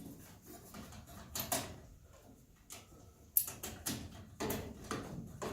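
Scattered clicks, taps and scrapes of hands handling and fitting metal furnace parts, more frequent in the second half.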